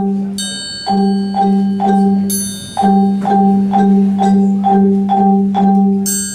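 Children's ensemble of Orff xylophones playing a repeated low pattern of mallet strokes, about two a second, in short groups. High, bell-like notes ring out over it three times.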